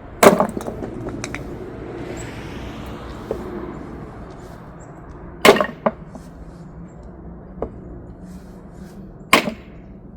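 Firewood being chopped with a blade into small pieces: three loud chopping strikes about four to five seconds apart, with a few lighter knocks between.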